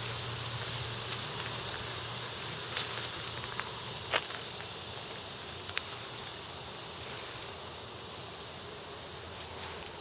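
Steady high hiss of insects in the bush, with a few faint short clicks, the clearest about four seconds in.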